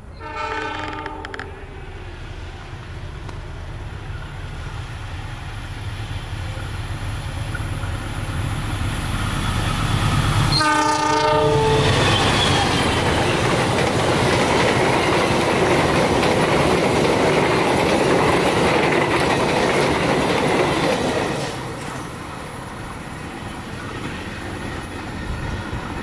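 Passenger train hauled by a diesel locomotive approaching at speed: a short blast of the locomotive's multi-tone horn, then a second blast about ten seconds in as it reaches the track-side. The coaches then rush past loudly on the rails for about ten seconds before the sound drops away as the train recedes.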